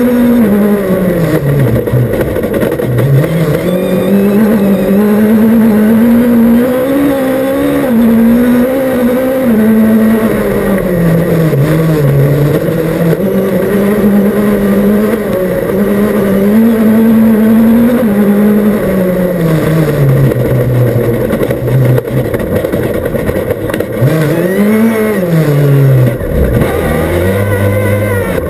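Rally car engine heard from inside the cockpit, loud throughout, its pitch climbing and dropping every few seconds as the car accelerates, changes gear and lifts for corners on a dirt stage.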